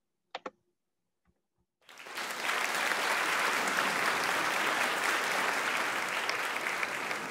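Audience applauding, starting about two seconds in and continuing steadily, with two short clicks just before it.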